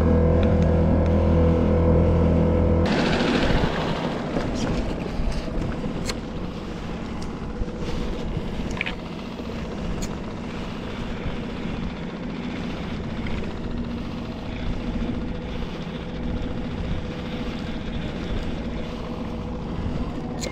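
Small boat outboard motor running at a steady speed. About three seconds in, its steady drone drops away and gives way to a quieter rushing wash of water and wind, with a faint motor hum beneath.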